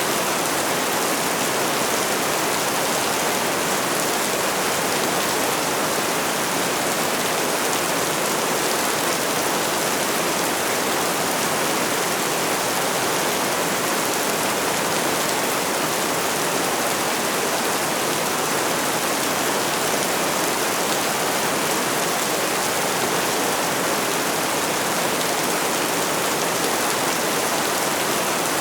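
Steady rainfall: a dense, even hiss of many drops, with no single sound standing out above it.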